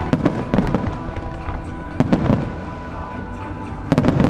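Fireworks display finale: rapid clusters of shell bursts and launch bangs, with a low rumble after each cluster. The volleys come just after the start, about two seconds in, and again near the end.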